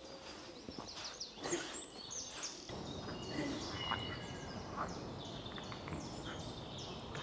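Faint pond-side chorus of short, high animal calls, repeating over and over, with frogs among the callers.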